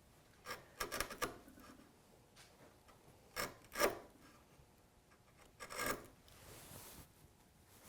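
Hand chisel paring wood from the bottom of a hinge leaf mortise, working down to the gauge line: several short, faint scraping strokes, the clearest a pair a little past three and a half seconds in and one around six seconds in.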